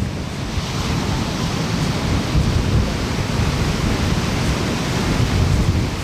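Ocean surf breaking and washing up a sandy, rocky shore: a continuous rush of foam over a heavy, uneven low rumble.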